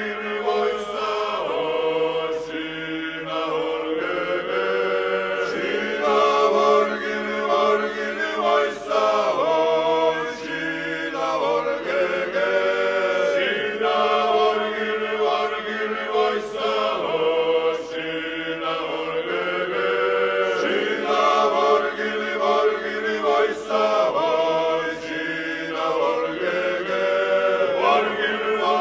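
Choir chanting in several parts over a steady held low drone, the upper voices moving in phrases of a second or two.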